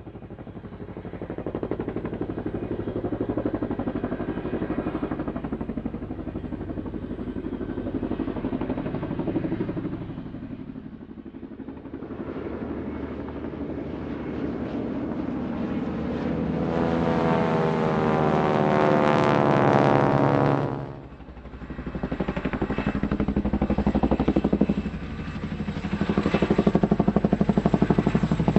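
Added engine sound effect: a steady motor drone that swells and fades. From about 17 s a louder sweeping pass comes through, and it cuts off suddenly near 21 s.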